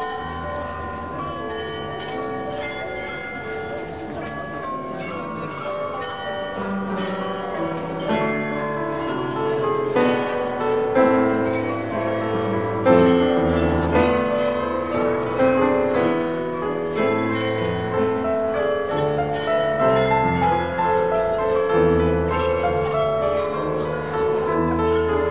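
Bells of the Munich New Town Hall Glockenspiel playing a tune, many ringing notes overlapping, getting a little louder as it goes.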